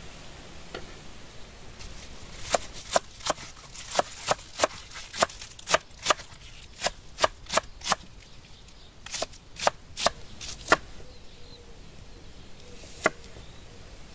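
Knife chopping on a cutting board: runs of sharp, even strokes about two a second, broken by two short pauses, then two single strokes near the end.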